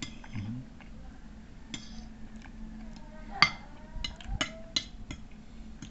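Metal spoon clinking and scraping against a ceramic plate while scooping up rice, a string of sharp separate clinks with the loudest about halfway and several quick ones near the end.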